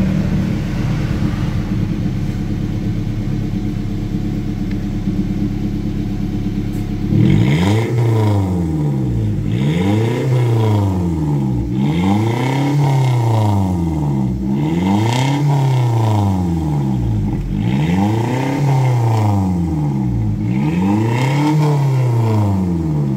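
Toyota Avanza's exhaust through a newly fitted aftermarket resonator and Spoon Sport muffler, with a deep, bassy note. The engine idles steadily, then about seven seconds in it is revved up and let back down over and over, roughly every two seconds.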